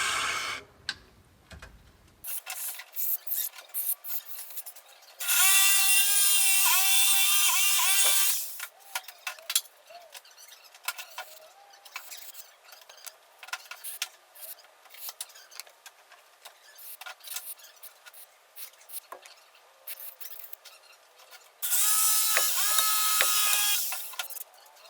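Aerosol brake cleaner spraying in two long hissing bursts, about three seconds each, with a faint whistle from the nozzle, used to clean disassembled carburetor parts. Between the bursts, small metal parts click and clatter as they are handled.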